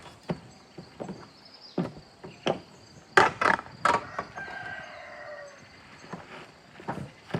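Sharp knocks and taps at uneven intervals, a loud cluster of them about three seconds in, followed by a drawn-out animal call that falls in pitch.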